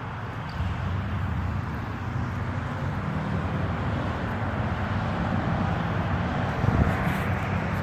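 Road traffic going by, a steady low rumble that swells slightly, with one short thump near the end.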